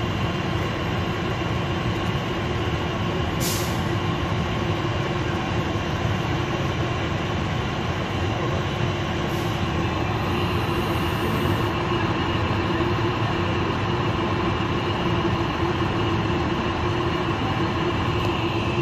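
Fire apparatus diesel engine running steadily, a constant mechanical noise with a steady hum in it. A brief hiss comes about three and a half seconds in.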